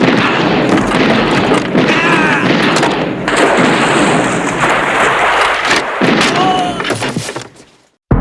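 Movie shootout sound mix: rapid gunfire and impacts layered over a continuous loud din, fading out near the end.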